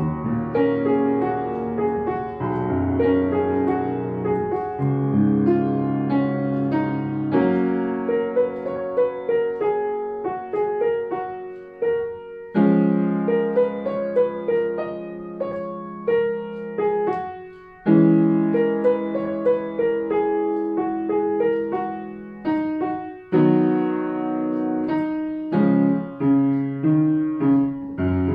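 Solo upright piano playing a gentle melody over held low chords, pausing briefly about twelve and eighteen seconds in before each new phrase begins.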